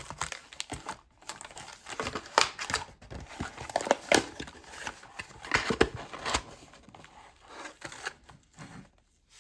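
Plastic and paper packaging of a sealed hockey card box crinkling and tearing as it is opened by hand, in irregular rustles and sharp crackles with short pauses.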